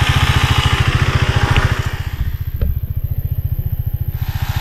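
Motorcycle engine idling with a steady, even low thump, plus a single short click about two and a half seconds in.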